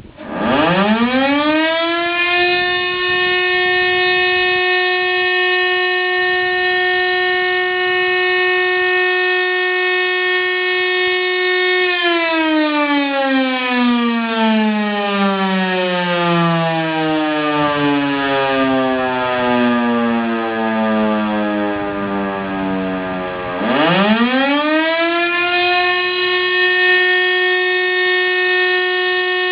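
Old Siemens FM SI 41 motor-driven fire siren sounding the 'Feueralarm' signal, the German fire-brigade call-out. It spins up to a steady wail within about two seconds and holds it, is switched off about twelve seconds in and winds down in a long falling glide, then is switched on again near 24 seconds and rises back to full pitch for the second blast.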